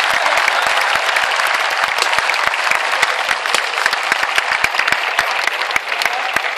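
A large crowd in grandstands clapping: a dense, steady patter of many hands applauding, thinning slightly near the end.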